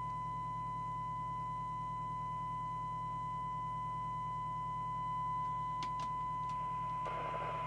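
Steady 1 kHz test tone from the CB receiver's loudspeaker over a low hum, as the receiver demodulates the signal generator's tone-modulated test signal during IF alignment. Background hiss comes up about seven seconds in.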